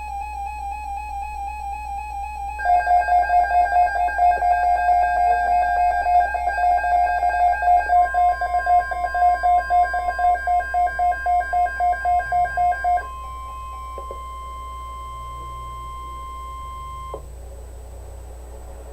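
Weather alert radios sounding their alarms for a winter storm alert: a warbling beep, then a louder beep pulsing about four times a second that stops about 13 seconds in. About eight seconds in, the steady 1050 Hz NOAA Weather Radio warning tone joins and then cuts off suddenly about 17 seconds in.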